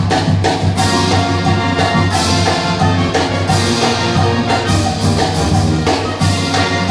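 Marching band playing with drums and brass, the music partly buried under a heavy roar of wind on the microphone.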